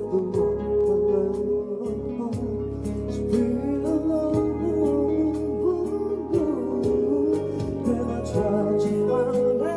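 Music with a steady beat of about two strokes a second over sustained bass notes, keyboard chords and a moving melody line, typical of a song intro on a backing track.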